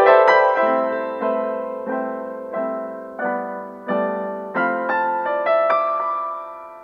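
Background piano music: notes and chords struck about every two-thirds of a second, each dying away, the piece fading out near the end.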